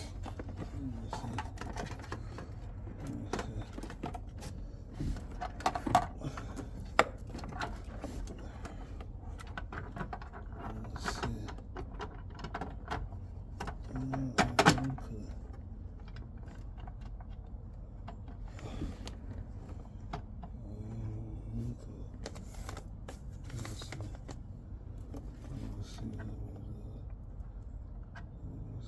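Hand tools working on bolts, a socket wrench and metal parts clicking and clinking irregularly, with a few louder knocks about six, seven and fourteen seconds in, over a steady low hum.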